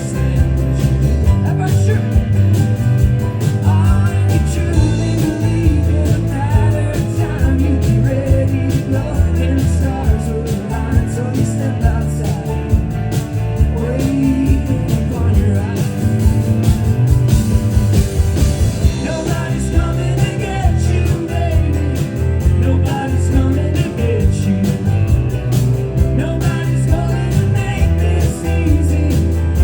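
Rock band playing live, with electric guitar, bass and drums and a singing voice.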